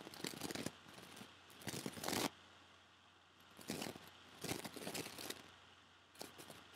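Stylus scratching on a pen-tablet surface while numbers are handwritten, in several short scratchy strokes with brief gaps between them.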